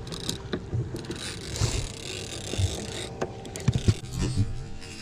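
Large conventional fishing reel being cranked in a rod holder under the load of a hooked shark, its gears and handle clicking irregularly. A few louder knocks come a little before four seconds in.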